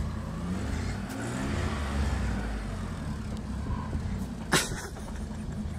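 Vehicle engines running hard under load while a stuck pickup is pulled out of deep snow on a recovery strap, the revs rising in the first couple of seconds. A single sharp knock about four and a half seconds in.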